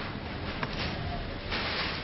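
Hurricane wind and driving rain: a steady rushing with two stronger gusts, the louder one near the end.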